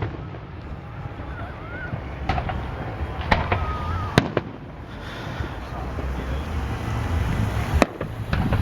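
Aerial fireworks shells bursting: a handful of sharp bangs at uneven intervals, the loudest near the end, over a low continuous rumble.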